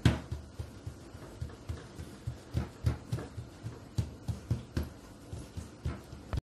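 Palms patting and pressing a round of risen bazlama dough flat on a floured tabletop: a run of dull, irregular thuds, about three a second.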